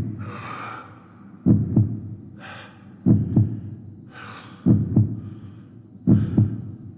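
Heartbeat sound effect: slow, deep double thumps, lub-dub, repeating about every second and a half. Between the beats come a person's short, audible breaths.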